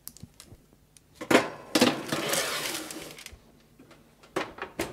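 Metal baking tray slid into an oven onto its shelf runners: a clank about a second in, then a scraping metal rattle lasting over a second, and two short sharp clicks near the end.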